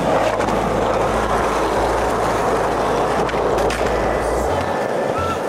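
Skateboard wheels rolling over asphalt: a steady rolling noise with no break.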